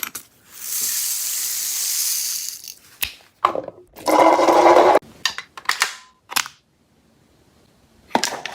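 Mechanical handling of a toy revolver gel blaster: a hiss of about two seconds, a few sharp clicks, then a loud rasping rattle lasting about a second, followed by more clicks.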